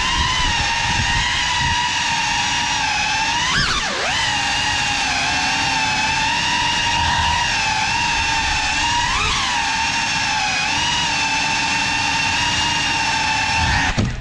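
GEPRC Cinelog 35 ducted 3.5-inch cinewhoop on 6S, its motors and propellers whining steadily as heard from the onboard camera. The pitch swoops briefly with throttle changes about four and nine seconds in, and the whine cuts out abruptly at the very end.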